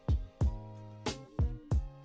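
Background music: about five drum hits over held notes.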